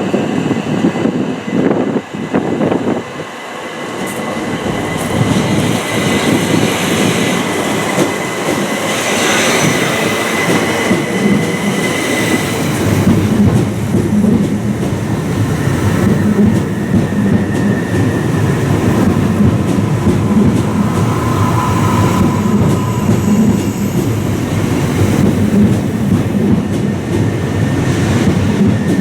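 Southern electric passenger train moving along the platform: steady wheel-and-rail running noise that grows louder a few seconds in, with a thin high squeal for several seconds in the first half and a throbbing low hum in the second half.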